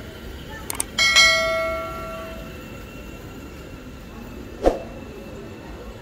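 A single bell-like ding about a second in, ringing out and fading over about a second and a half, just after two short clicks. A sharp knock comes near the end.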